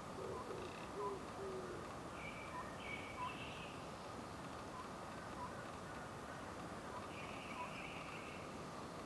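Oriental scops owl hooting: a short phrase of three low notes in the first two seconds. Other small birds call higher up around three seconds in and again near the end.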